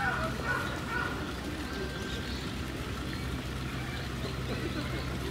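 Outdoor background ambience: a steady low hum with faint short high chirps in the first second.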